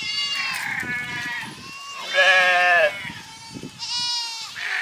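Several hair sheep bleating, their calls overlapping one after another. The loudest call, about halfway through, drops in pitch at its end.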